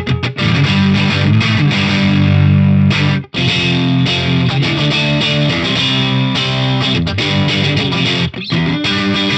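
Greco SE 600 electric guitar played through a miked Laney VH100R valve amp: sustained chords and riffs that change pitch. The sound cuts out briefly twice, about a third of the way in and again near the end.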